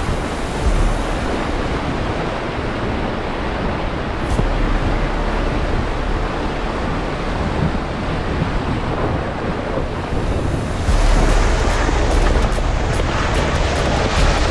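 Jeep Gladiator's tires sloshing and splashing through a flooded, muddy trail, a steady wash of water noise over a low rumble. About 11 seconds in it turns brighter and harsher, with crackling spray as a tire throws up mud and water.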